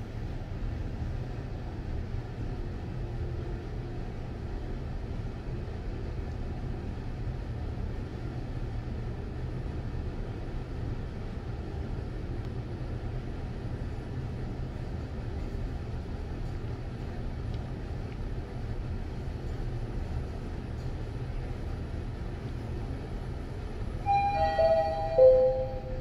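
Mitsubishi passenger lift running with a steady low rumble and hum. Near the end a falling three-note chime sounds, typical of a lift arriving at a floor.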